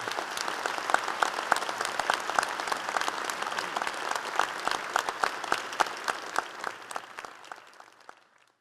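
Large audience applauding, a dense patter of many hands clapping that fades away near the end.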